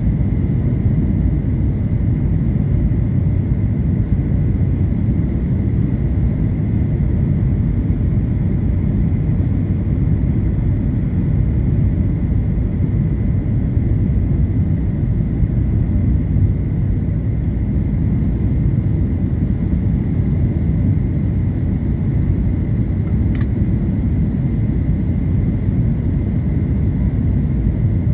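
Airliner cabin noise: a steady low rumble of engines and airflow heard from inside the cabin, with a faint high steady tone over it. A single faint click sounds near the end.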